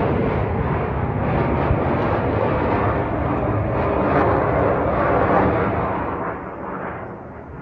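Military jet fighter's engine roar during high-manoeuvre flight training, loud and steady, then fading from about six seconds in as the jet draws away.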